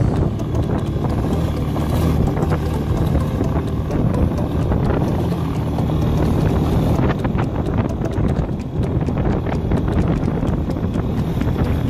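Motorcycle engine running steadily while riding on a dirt track, with wind buffeting the microphone.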